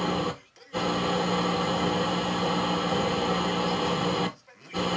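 Mystery MMD-7150 car head unit's FM radio playing through its speaker: a steady hiss with a faint hum and no clear programme. It mutes briefly about half a second in and again near the end as the preset and band are switched.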